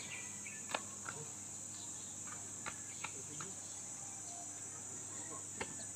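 Steady high chirring of insects, with a few short sharp knocks of a long iron digging bar striking a tree stump and its roots; the loudest knock comes about a second in.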